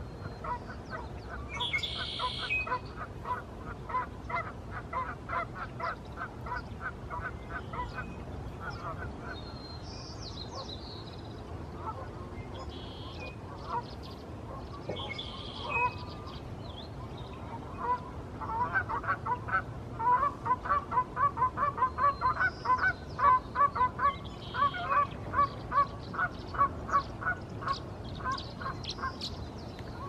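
Goose honking in long runs of quick, evenly spaced honks, about three or four a second, with a louder run starting a little past the middle. Short, higher chirps from smaller birds come in between.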